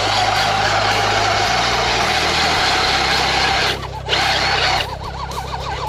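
Steady vehicle motor noise with a brief drop about four seconds in. After that, a fast-warbling, siren-like tone enters.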